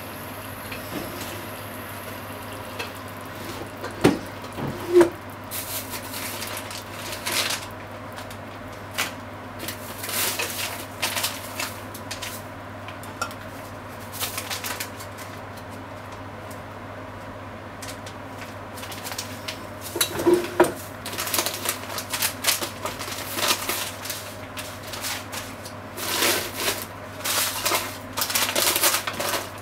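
Wooden chopsticks stirring and breaking up ground pork in a frying pan, clicking and scraping against the pan in irregular bursts, with a few sharper knocks on the pan. A steady low hum runs underneath.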